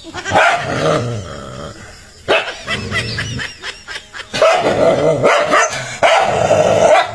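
Dog barking and growling in several loud bursts, with a run of quick, sharp barks in the middle and a longer stretch of growling and barking near the end. The dog is challenging its own reflection in a mirror.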